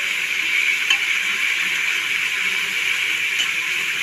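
Sliced onions sizzling in hot oil in an aluminium pressure cooker, a steady hiss as they fry towards golden brown, with a few faint clicks.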